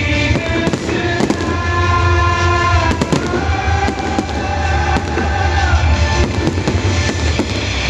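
Fireworks going off in a rapid, irregular string of bangs and crackles, with loud music and a heavy bass playing under them.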